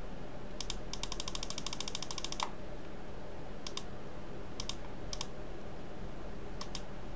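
Computer mouse button clicking: a fast run of about ten clicks a second for about a second and a half, then single and double clicks spaced a second or so apart.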